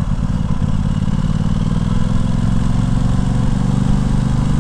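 Aprilia Tuono 660's parallel-twin engine pulling at low speed on a steady, light throttle, its low note lifting slightly about two seconds in. The fuelling is smooth and not jerky.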